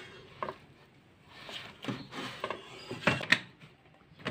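Air-fryer basket being handled and slid back into the fryer: a series of light plastic knocks and clunks, with some rustling in between and a louder pair of clunks near the end.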